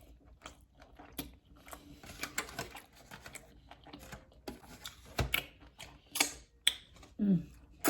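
Close-miked chewing of a baleada (flour tortilla with beans, avocado and steak): irregular wet mouth clicks and lip smacks, with one louder smack about five seconds in.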